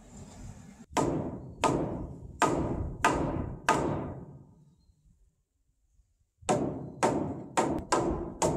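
A wooden mallet striking a wooden door-frame post, knocking its foot into place. Two runs of five hollow knocks, each ringing briefly, with a pause of a couple of seconds between the runs.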